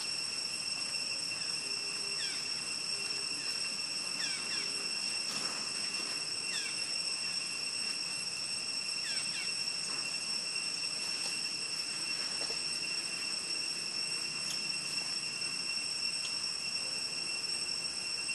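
Steady outdoor insect chorus, crickets or cicadas shrilling on several constant high pitches without a break. A few short falling chirps sound over it every couple of seconds in the first half.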